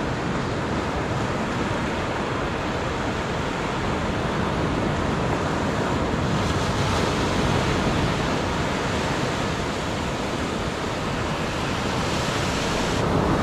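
Sea surf washing onto a beach: a steady rush of breaking waves that swells a little about halfway through and again near the end.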